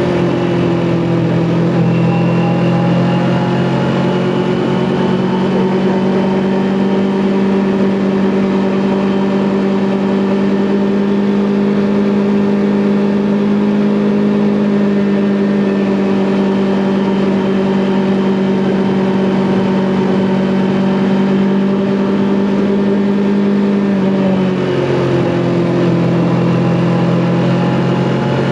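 Kawasaki Ninja 400 parallel-twin motorcycle engine under way at steady revs. About 24 seconds in, the revs dip briefly, then pick up again.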